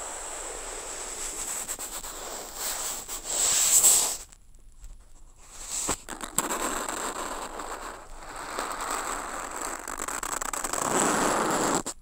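Amplified scratchy brushing of brush strokes dragged across paper, picked up by contact microphones on the sheet. An ink brush stroke swells to its loudest about four seconds in and breaks off. After a short near-silence and a click, a bundled twig brush scrapes across the paper and stops abruptly near the end.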